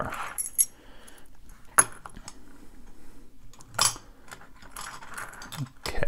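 A ring of brass keys jangling and clinking as it is picked up and handled over a metal pin tray, with a few sharp clicks, the loudest about two and four seconds in.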